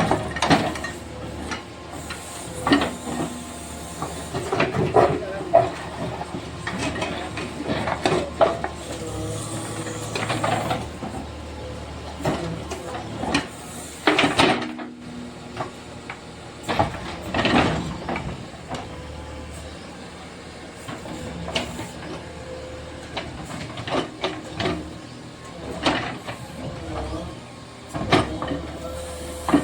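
A JCB backhoe loader's engine running steadily, with irregular knocks, scrapes and clattering as its bucket breaks up and shifts masonry rubble during house demolition.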